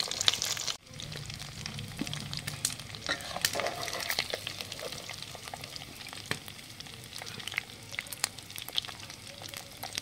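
Chicken 65 deep-frying in hot oil: a steady sizzle dotted with many small sharp pops and crackles. The sound dips briefly about a second in, then carries on.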